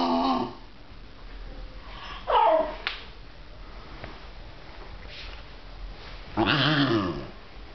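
Two basenjis vocalising in play: a low growl trailing off at the start, a short whine falling steeply in pitch about two seconds in, and a louder, wavering growl near the end.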